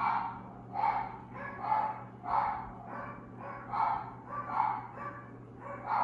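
A dog barking over and over at a steady pace, about one bark every three-quarters of a second, over a low steady hum.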